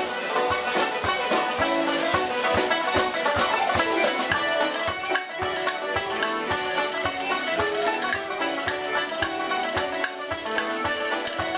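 Live Irish traditional music: several instruments playing a lively tune over a steady beat.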